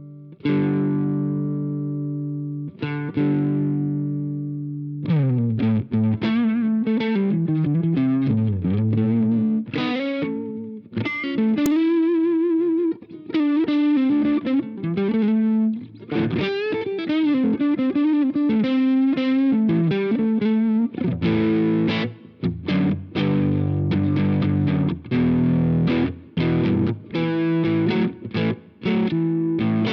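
Electric guitar played through an iSet Dumbler Dumble-style overdrive pedal, with a lightly distorted crunch. Two chords ring out, then a lead line of quick single notes with string bends starts about five seconds in. Choppy, short rhythm chords take over about two-thirds of the way through.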